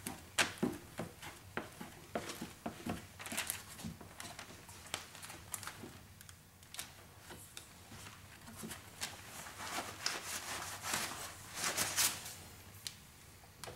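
Cloth towel wiping and rubbing around a car door window and frame, in short irregular strokes with light rustling and scraping.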